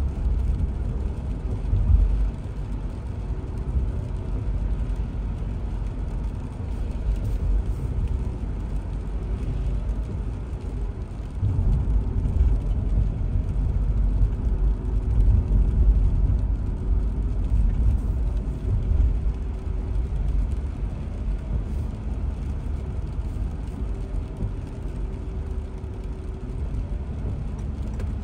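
A car driving along a wet road: a steady low rumble of tyres and engine with a faint wavering hum. It grows louder about eleven seconds in.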